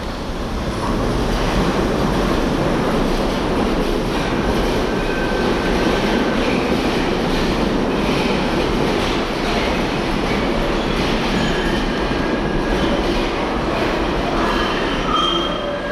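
Driverless 2 ft gauge Post Office Railway (Mail Rail) electric train running along the rails into the tunnel, a steady loud rumble of wheels on track that swells up in the first second or so. Short high wheel squeals come and go, more often in the second half.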